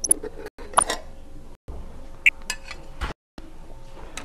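Screwdriver and small screws clinking and tapping on metal as the screws of a Brother KE-430C sewing machine's feed-mechanism covers are taken out. It comes as a handful of separate sharp clinks, broken by short silent gaps.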